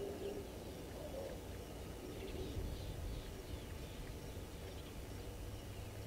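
Faint high bird chirps, a few short calls a little after two seconds in, over a steady low rumble.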